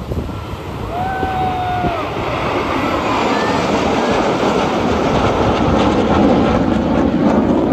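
Jet engines of a nine-aircraft aerobatic formation, the Surya Kiran team's Hawk jet trainers, passing overhead. It is a steady jet roar that swells and is loudest near the end.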